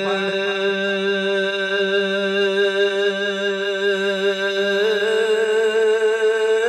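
A male singer holds one long sung note with a wavering vibrato over a steady low drone, his pitch stepping up about five seconds in, in a Saraiki qalandari dhamaal.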